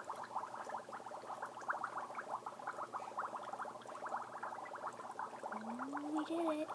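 Dry ice bubbling in a glass bowl of water: a dense, fast, steady crackle of gas bubbles breaking at the surface.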